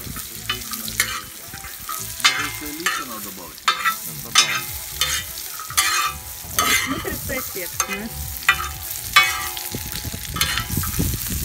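Pelmeni frying in a large metal pan, hissing steadily, while a metal spatula scrapes and clinks against the pan as they are stirred, about once every second.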